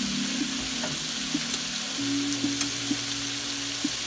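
Bacon sizzling in hot oil in a skillet, a steady hiss with occasional small pops and ticks.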